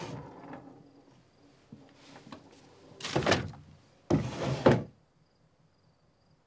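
Wooden desk drawer being worked: sliding wood-on-wood rasps, a loud one about three seconds in, then a last slide that ends in a sharp thunk as the drawer is pushed shut.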